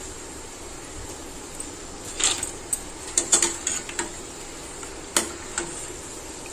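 Perforated steel skimmer scraping and clinking against a stainless steel kadai while scooping deep-fried peanuts out of the oil, over a steady low sizzle. The clinks come as a run of sharp knocks through the middle, with two more near the end.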